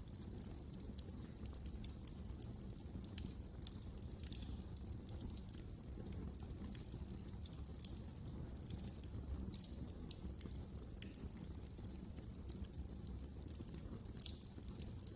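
Wood fire crackling: frequent sharp snaps and pops over a low, steady rumble.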